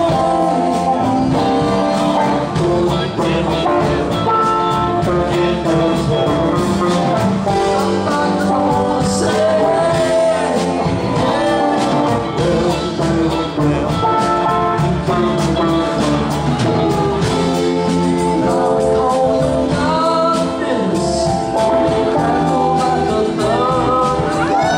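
Live rock band playing: electric guitars, bass guitar and drums, with a sung vocal over the top.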